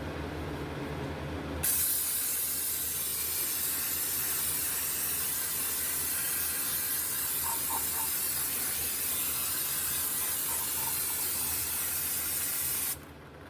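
Aerosol spray can spraying in one long continuous hiss that starts abruptly about a second and a half in and cuts off suddenly near the end.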